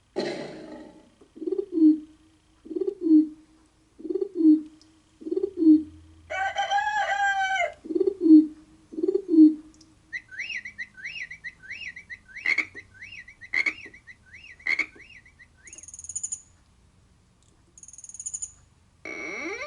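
Yamaha PSR-E273 portable keyboard playing its built-in SFX kit sound effects one key after another: animal and bird calls, starting with a row of short low hoots about a second apart and a longer pitched call about six seconds in. Then come quick high chirps with sharp clicks, two brief high tones, and a sweeping call near the end.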